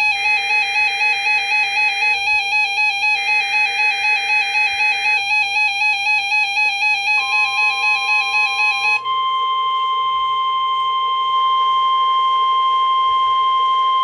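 RadioShack 12-521 weather radio sounding its alert for a NOAA Required Weekly Test: a fast warbling electronic siren pulsing about four times a second, with the broadcast's SAME data bursts twice underneath. About nine seconds in, the warble gives way to a steady, high single-pitched alert tone.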